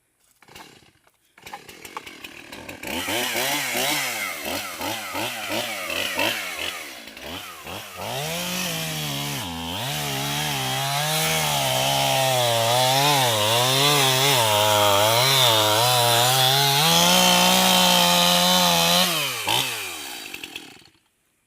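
Stihl MS271 two-stroke chainsaw starting about a second and a half in and revved up and down several times in quick blips. It is then held at high speed for about ten seconds with its pitch wavering, before dropping off and shutting down near the end.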